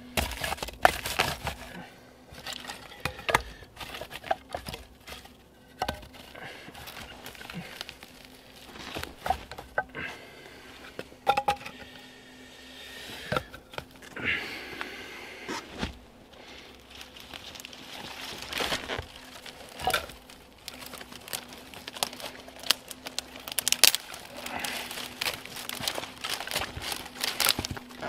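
Dry twigs and bark being handled and broken: irregular crackling, snapping and crinkling.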